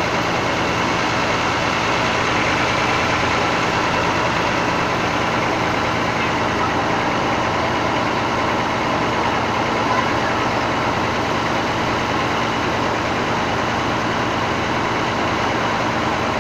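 Bus engine idling steadily, with voices murmuring in the background.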